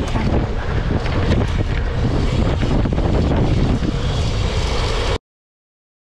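Wind rushing over an action camera's microphone on a BMX bike at speed on a dirt track, a loud steady rumble. It cuts off abruptly to complete silence about five seconds in.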